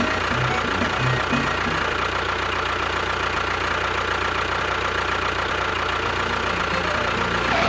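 Small engine running steadily with a rapid, even beat.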